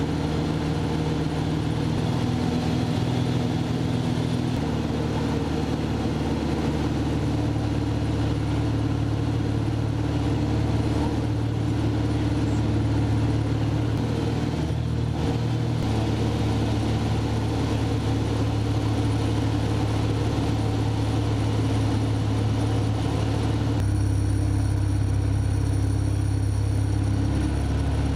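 Piston engine and propeller of a Van's RV light aircraft, heard inside the cockpit as a steady drone. Its pitch shifts in steps several times as the power setting changes during aerobatic manoeuvres.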